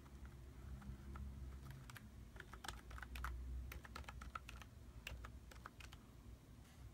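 Keys of a ZIO RMK300U wireless mini keyboard being pressed one after another: a run of irregular, light key clicks, sparse at first and most frequent from about two seconds in to about six.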